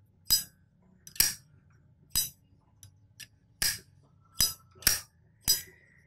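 Zippo windproof lighter's hinged metal lid flipped open and snapped shut over and over: about seven sharp, ringing metal clinks spread unevenly, with a few fainter clicks between them.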